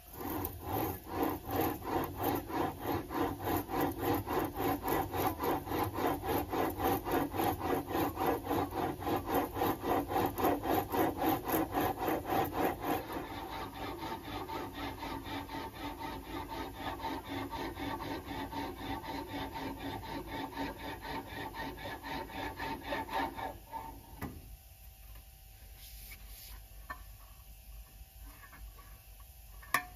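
A 1 mm steel sheet being rolled back and forth between the upper wheel and the lower anvil of a benchtop English wheel: a fast, even, rubbing rhythm as the panel is stretched into shape. It is loudest at first, eases off about halfway and stops a few seconds before the end.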